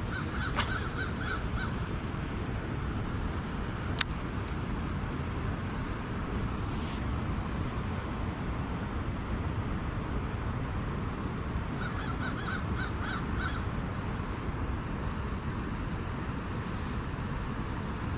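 A bird calling in two runs of five or six short repeated calls, one at the start and one about twelve seconds in, over a steady outdoor hiss. A single sharp click about four seconds in.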